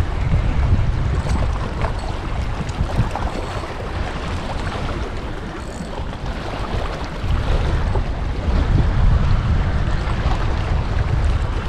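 Wind buffeting the microphone in gusts, a heavy low rumble that eases for a few seconds and picks up again about seven seconds in, over inlet water washing against shoreline rocks.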